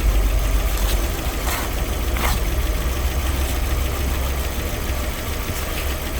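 2003 Mazda MX-5's four-cylinder engine idling steadily with no revving, running the engine flush through its old oil before an oil change.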